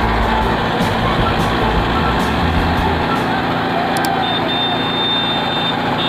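Kubota tractor's diesel engine running steadily under load while its Shaktimaan rotavator churns through the soil, with a deep rumble strongest in the first three seconds. A thin, steady high tone joins about four seconds in.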